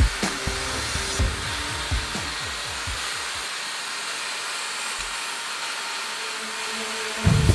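Small cordless angle grinder with a wire wheel running against forged steel, giving a steady, even hiss.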